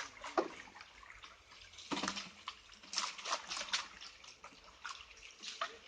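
River water sloshing and splashing around a raft, in irregular small splashes and trickles.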